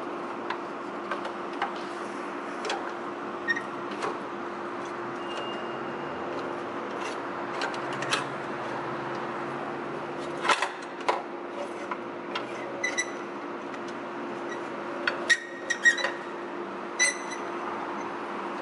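Plastic condenser fan shroud being handled and worked into place against the radiator: scattered light clicks and knocks, with a few ringing metallic clinks in the last few seconds, over a steady low hum.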